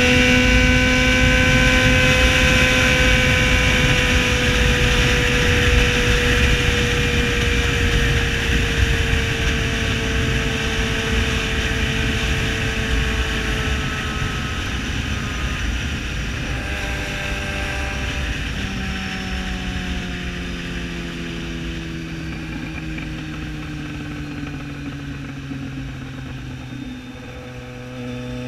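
Yamaha XJ6 Diversion's inline-four engine, breathing through a full aftermarket exhaust, running at high revs. Its pitch and loudness fall slowly and evenly as it eases off. About two-thirds of the way in, a second, lower engine note joins.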